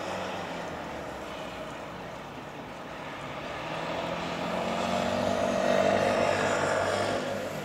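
Airbus A330-200 airliner passing overhead on approach, its jet engines' rumble with a low steady hum swelling to its loudest about five to seven seconds in, then starting to fade.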